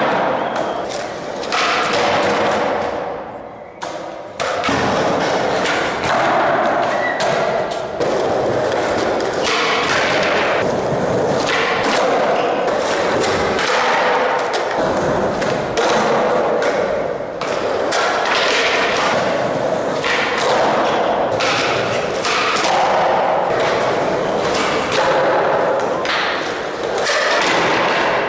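Skateboards rolling on a concrete floor, with many sharp pops, slaps and thuds of boards being popped, landing and hitting the ground, echoing off concrete walls.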